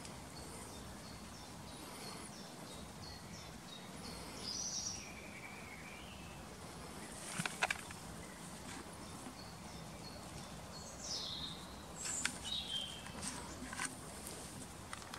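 Wild birds chirping and calling now and then over a steady outdoor hiss, with a few brief sharp clicks or rustles near the middle and again toward the end.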